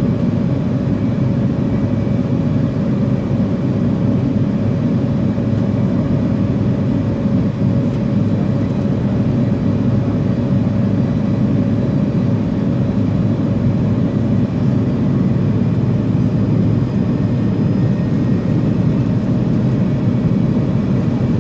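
Steady engine rumble heard inside the cabin of an American Airlines MD-80, its rear-mounted Pratt & Whitney JT8D turbofans at idle, with a thin steady whine above the low drone.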